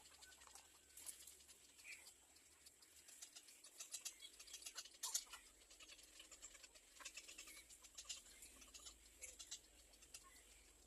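Faint rustling and quick ticking of nestling birds stirring in the nest, with a soft chirp about two seconds in.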